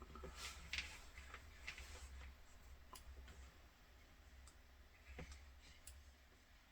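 Near silence with faint, scattered clicks and light taps from small handling at a workbench.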